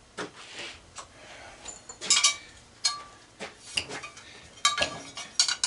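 Pieces of metal scrap being handled, clinking and clanking against each other in a scattered series of sharp knocks. The loudest knock comes about two seconds in, with a short metallic ring.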